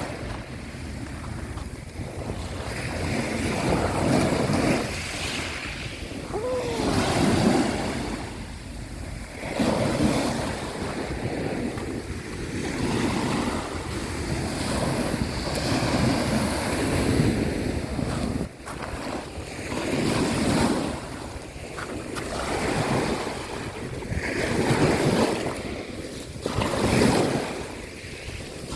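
Sea waves breaking and washing on a shore, swelling and falling away every few seconds, with wind buffeting the microphone.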